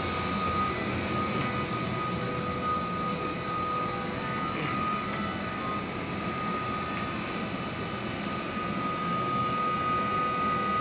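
Steady drone of large building machinery running: an even rush of air with a few high, steady whining tones held throughout.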